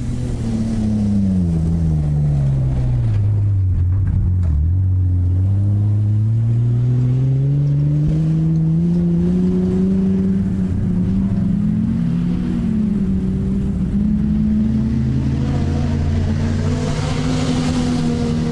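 Off-road racing buggy engine running under load: the revs fall over the first few seconds, then climb steadily and hold high, wavering, for the rest of the run. A rush of hiss comes in near the end.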